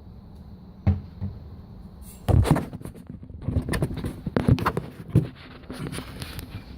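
A quick run of knocks and rustles for about three seconds, starting about two seconds in: handling noise as seed is put out for the bird.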